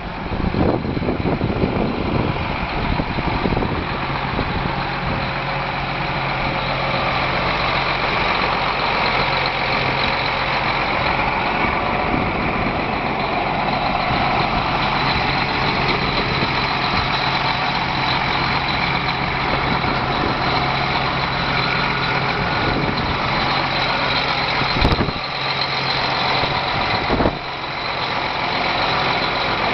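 The John Deere 8260R's six-cylinder diesel engine idling steadily, with a steady low hum and a thin high whine. Two sharp knocks come a couple of seconds apart near the end.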